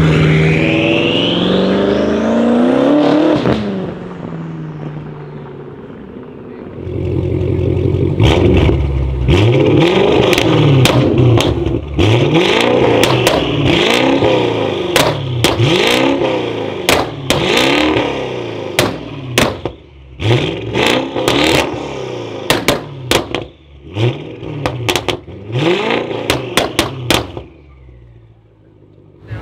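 Modified BMW M5 F10 pulling away under acceleration, its engine note climbing in pitch and then fading. After a cut, a modified BMW 6 Series Gran Coupé is revved repeatedly while standing still, about twenty quick rev blips with sharp pops and bangs from the exhaust between them.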